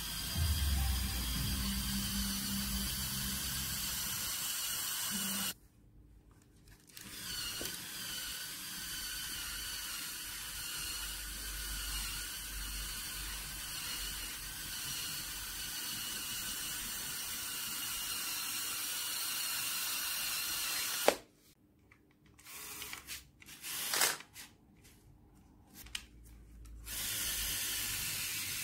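Small electric motors and plastic gears whining steadily as a Lego Technic model truck drives, its all-wheel drive turned by an XL motor and its steering by a servo motor. The sound drops out twice, and the second quiet stretch holds a sharp click and a few short knocks.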